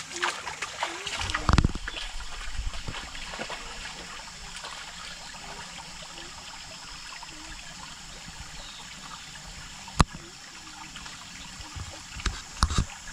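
Small spring-fed creek trickling steadily over its bed, with a single sharp click about ten seconds in.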